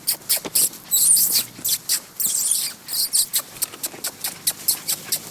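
Six-week-old giant schnauzer puppies squeaking and scuffling as they play, a quick run of short, sharp, high-pitched squeaks and clicks with a few louder bursts.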